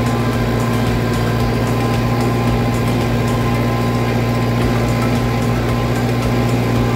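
Lovol 504 tractor's 50-horsepower diesel engine running steadily under load while pulling a rear-mounted implement through the soil, a constant low drone.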